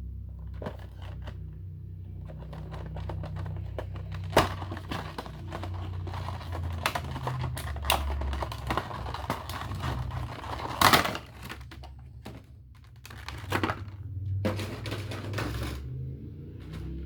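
Cardboard and plastic packaging being handled during an unboxing: rustling and crinkling broken by sharp clicks and knocks, the loudest about four and eleven seconds in, over a steady low hum.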